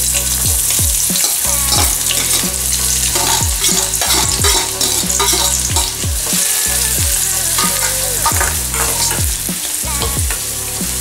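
Chopped onions and green chillies sizzling in hot oil in a steel kadai, stirred with a steel spoon that scrapes against the pan again and again.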